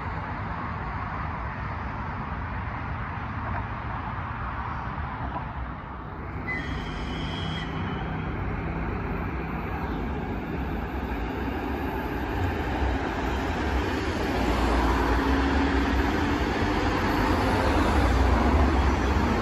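Electric commuter train pulling into a station over steady road-traffic noise, with a brief high squeal about six seconds in. From about fourteen seconds the noise grows louder as a bus and cars pass close by.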